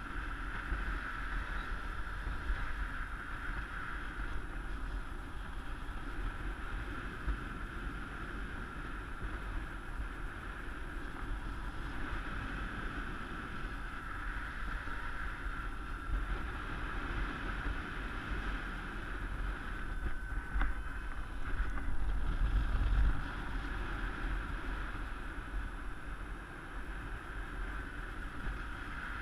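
Steady rush of airflow over a helmet-mounted camera in paraglider flight, with a low rumble that swells in a stronger gust a little after two-thirds of the way in.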